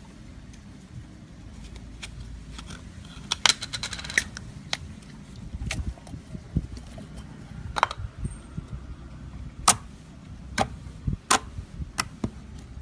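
Fingers poking and pressing glossy metallic slime, making sharp clicks and pops: a quick run of them a few seconds in, then single loud pops every second or two.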